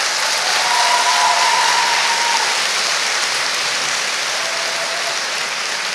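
Audience applauding, swelling in the first second and then slowly easing off.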